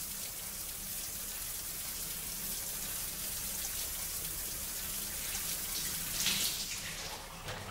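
Shower running: a steady hiss of water spray falling in a shower stall.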